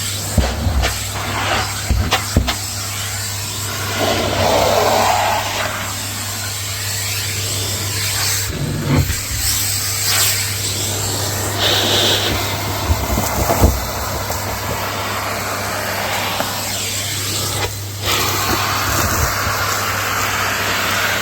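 Numatic Hetty cylinder vacuum cleaner running steadily while vacuuming dusty stairs, with several sharp knocks in the first few seconds.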